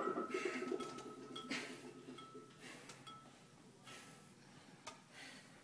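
Loaded steel barbell and plates clinking, a thin metallic ring fading out over about three seconds, with a few soft faint noises as it is handled.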